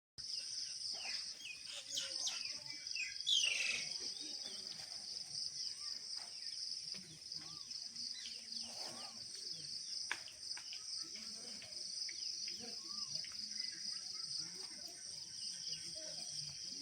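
Steady, high-pitched insect chorus with a rapid pulsing trill, over scattered faint calls and a brief louder call that falls in pitch about three seconds in.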